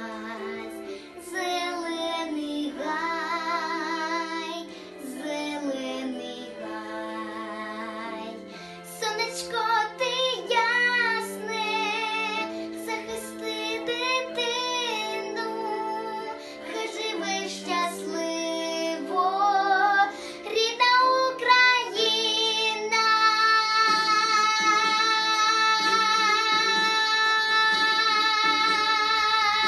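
A young girl sings a pop song over an instrumental backing track, ending on one long held note.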